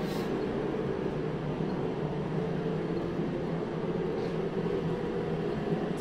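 Master propane forced-air heater running, its fan and burner making a steady, even sound.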